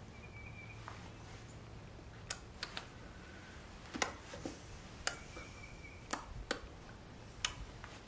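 Quiet garden ambience with two short, high, steady bird notes, one near the start and one past the middle, and a scatter of sharp clicks and taps that are louder than the birds.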